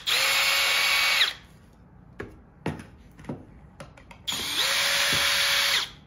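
Cordless drill running in reverse twice, backing 1 1/4 inch pocket-hole screws out of a wood cabinet-frame joint. It gives two steady whines, the first about a second long and the second about a second and a half, each spinning up and winding down, with small clicks of wood and screws between.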